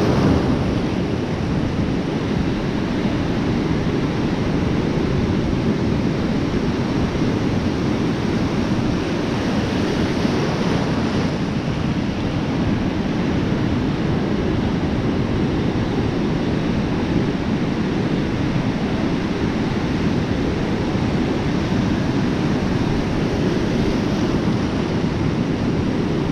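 Ocean surf breaking and washing in, a steady rush of waves, with wind rumbling on the microphone.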